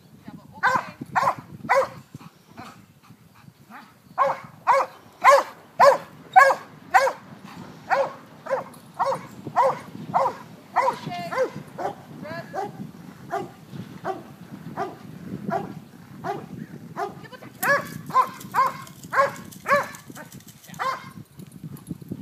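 A dog barking over and over, about two barks a second, with a short pause about two seconds in.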